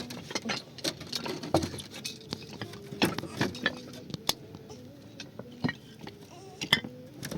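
Irregular light clicks and knocks, as of objects being handled or tapped, with the loudest around three seconds in and again near the end, over a faint wavering tone.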